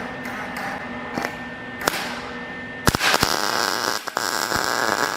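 Duct tape being pulled off the roll and torn: a few short rasps, then from about three seconds in a loud, crackling rip lasting about three seconds, with sharp clicks in it.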